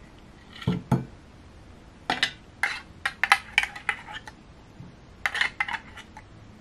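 A metal fork clicking and scraping against the inside of an opened sardine tin as oily sardines are lifted out, in four short bursts of sharp clinks.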